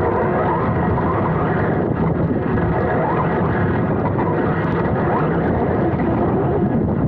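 Onboard sound of an electric 4WD RC racing buggy: the brushless motor and drivetrain whining, rising and falling with the throttle, over a constant rushing noise of tyres and air at the chassis.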